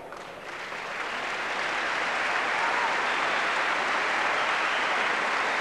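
Large crowd applauding, swelling over the first couple of seconds into a steady, sustained ovation.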